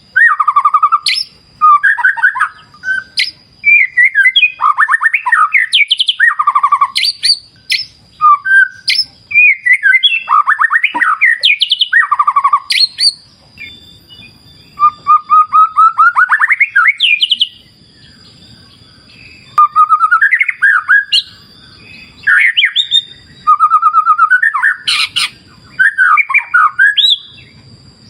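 White-rumped shama (murai batu) singing: a run of varied, loud phrases of rapid whistled trills and chatters with short pauses between them, over a thin steady high tone.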